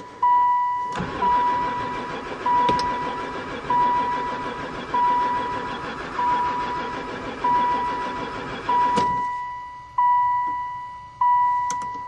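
Chrysler-built van engine cranking on its starter for about eight seconds without ever firing, then stopping; the owner takes this for no spark. A dashboard warning chime dings steadily, about once a second, over the cranking and after it.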